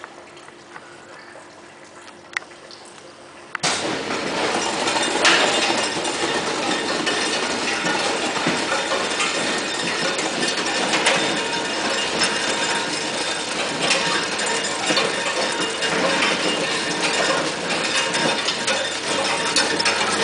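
Ice vending machine dispensing: a faint machine hum, then about four seconds in a sudden, steady rush of ice cubes clattering down the chute into a fabric bag, a dense rattle that keeps going.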